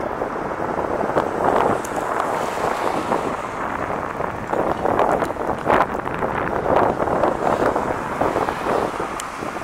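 Highway traffic going past in a steady rush that swells and fades as vehicles pass, with wind buffeting the microphone.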